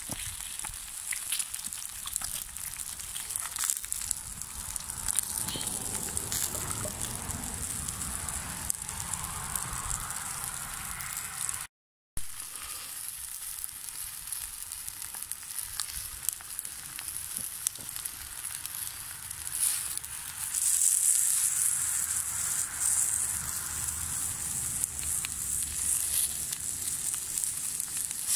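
Eggs, sausage slices and vegetables sizzling in a frying pan over a wood fire: a steady high hiss with scattered small crackles. The sound drops out briefly near the middle, and the sizzle grows louder about two-thirds of the way through.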